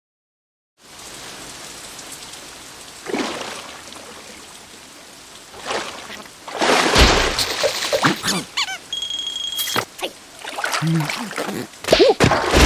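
Cartoon sound effects: splashing and trickling noises mixed with the squeaky, wordless vocal sounds of the cartoon larvae, with a brief steady high tone about nine seconds in.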